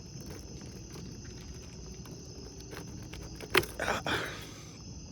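Small plastic clicks and handling of wiring connectors on an IPDM, with one sharp click about three and a half seconds in followed by a short scrape. Crickets chirp steadily throughout.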